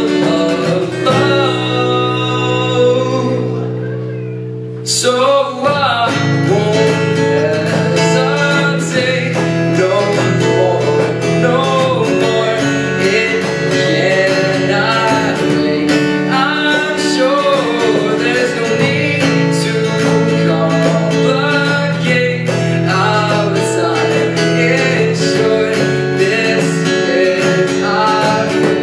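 A live song: a voice singing over strummed acoustic guitar. About five seconds in, a held chord has faded away and a sharp strum brings the playing back in, with the singing carrying on over it.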